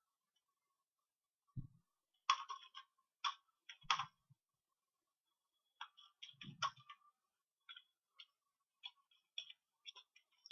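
Faint, irregular clicking of computer keyboard keys being typed, with a few soft low thumps among the clicks.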